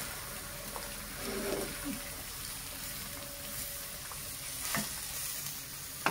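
Food frying in hot oil in a pan, a steady sizzle, with two light clicks near the end.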